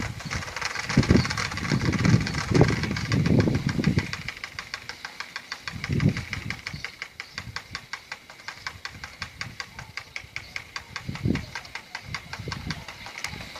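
An engine idling with a fast, even ticking beat, broken by several irregular low thumps.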